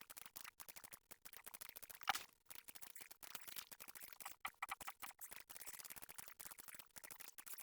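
Faint, rapid, irregular clicking of a computer mouse as points are placed to draw lines along the river banks, with one louder click about two seconds in.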